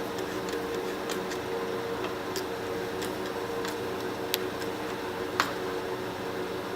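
Irregular light clicks of a tool tightening a hose clamp on the intake elbow, with two sharper clicks a little past the middle, over a steady hum.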